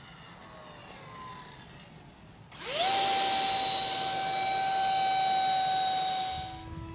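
Brushless electric ducted-fan motor of a radio-controlled F9F Panther model jet in flight. A faint whine at first, then about two and a half seconds in the throttle opens and it sweeps up sharply into a loud, steady high whine, which falls away shortly before the end.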